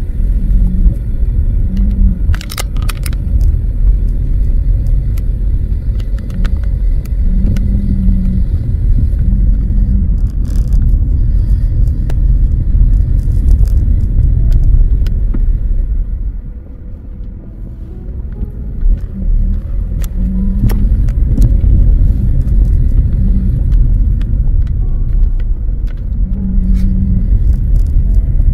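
Steady low rumble of a vehicle on the move, road and wind noise, easing off for a few seconds about two-thirds of the way through.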